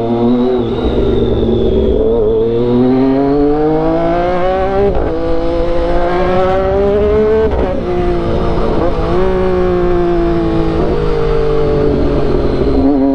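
Triumph Daytona 675's three-cylinder engine through an aftermarket sport exhaust, revving up under hard acceleration with quickshifter upshifts. The pitch climbs, then cuts and drops sharply about five and seven and a half seconds in, before the engine holds steadier and eases off near the end.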